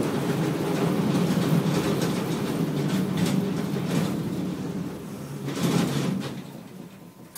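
Tosa Electric Railway 700-series tram running, its nose-suspended (tsurikake) traction motors humming, with a few clicks from the wheels on the track. The running noise dies away over the last couple of seconds.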